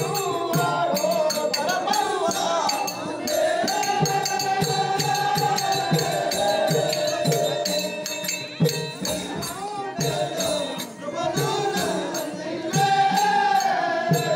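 Singing from a Telugu folk stage play (natakam): one voice holding long, wavering song lines over a steady beat of drum and jingling percussion, about two strikes a second.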